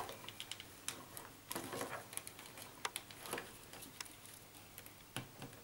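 Faint scattered clicks and soft taps of a plastic CAT5e network faceplate socket and a punch-down tool being handled, as wires are seated in the socket's terminal slots.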